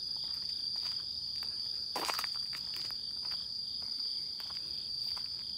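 Steady high-pitched chorus of night insects, with a short scuffing noise about two seconds in and a few faint clicks.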